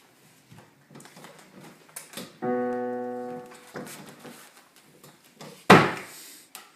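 Digital piano: a single chord struck about two and a half seconds in, held for about a second and then cut off, among light knocks of movement. Near the end comes a sudden loud thump, the loudest sound.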